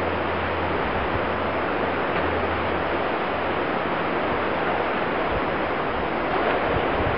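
Steady wind noise on the microphone, an even rushing hiss, with a faint low hum that comes and goes.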